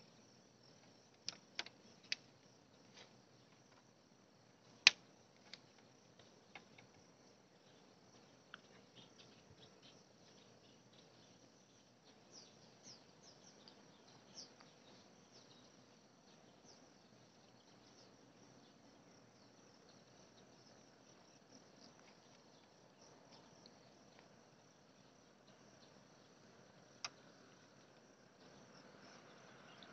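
Faint outdoor ambience with insects chirping, broken by a few sharp clicks: several in the first seconds, the loudest about five seconds in, and one more near the end.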